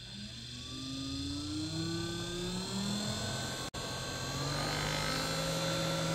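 Small 12-volt clip-on fan's motor speeding up, its whine rising in pitch over the first couple of seconds, then settling into a steady hum as it runs at a set speed. The sound drops out for an instant a little after halfway.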